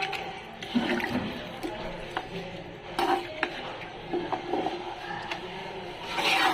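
Spoon stirring beef curry in a cooking pot through freshly added gravy, knocking and scraping against the pot several times.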